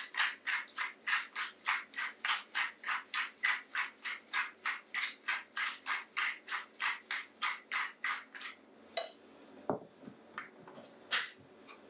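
Hand pepper mill grinding black peppercorns, twisted in a quick even rhythm of about four grating turns a second; the grinding stops about eight seconds in, followed by a few light clicks and a knock as the mill is handled and set down.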